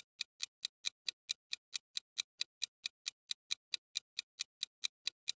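Countdown timer sound effect: quick, even clock ticks, about four and a half a second.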